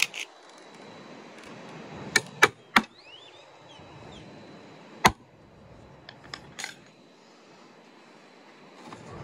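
Hammer striking a wood chisel to cut a hinge mortise in a wooden frame: three quick sharp blows about two seconds in, one more about five seconds in, then a few lighter taps.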